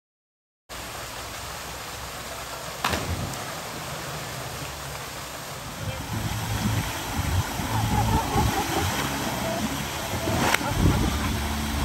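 Waterfall rushing, with wind rumbling on the microphone and two sharp knocks, one about three seconds in and one near the end.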